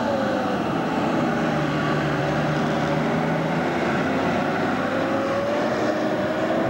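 Four-wheel-drive SUV driving past over a grassy field, its engine note dropping at first and rising again near the end.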